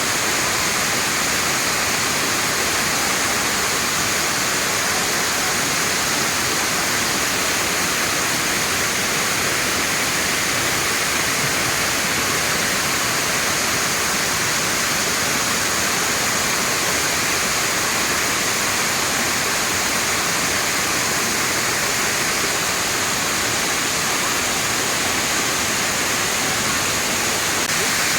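Waterfall: a steady, unbroken rush of falling water, with a strong hiss in the upper range.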